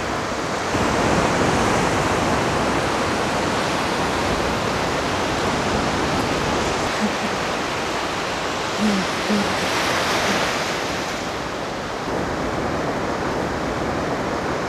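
Surf washing onto a beach: a steady rushing noise that swells about a second in and again around ten seconds in.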